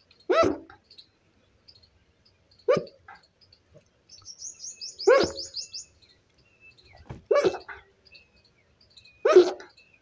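A dog barking about every two seconds, five single barks. A quick run of high bird chirps comes just before the middle bark.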